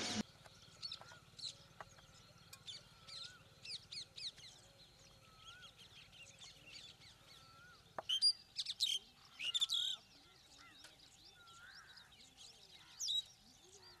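Birds calling: many short chirps and whistled sweeping notes, with louder bursts of calls about eight to ten seconds in and again near the end.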